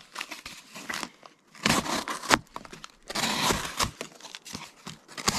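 A knife cutting and tearing strips from a piece of corrugated cardboard, in about four rough strokes with a few sharp snaps.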